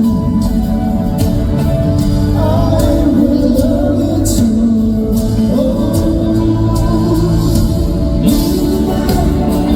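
A band playing a song live at a sound check, with sung vocals over sustained accompaniment and repeated cymbal strokes.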